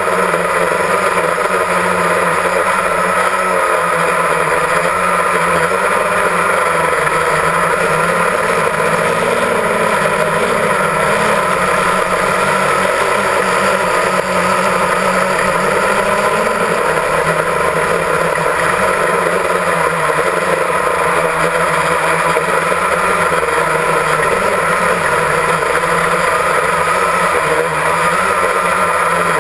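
Multirotor drone's electric motors and propellers running with a steady hum, heard close up from the camera carried on the drone, the pitch wavering slightly as it manoeuvres.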